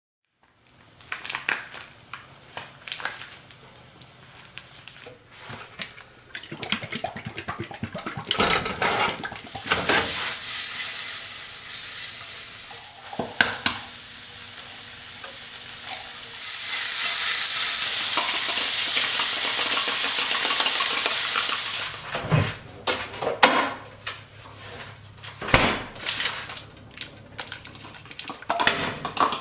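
Sliced turkey sausage sizzling in a nonstick frying pan, with the clinks and knocks of utensils and the pan being handled. A louder steady hiss runs for about five seconds a little past the middle.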